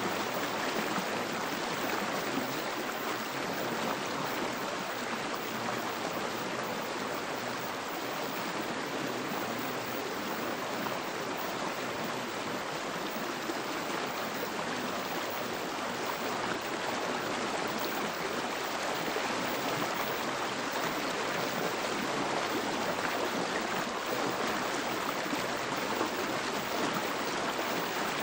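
Steady rushing water of a stream: an even hiss with no separate splashes or other events.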